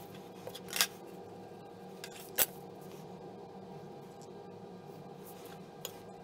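Pencil and steel square handled on paper over a wooden table: a short scrape about a second in, a sharp click a little later, and a faint tick near the end, over a steady low hum.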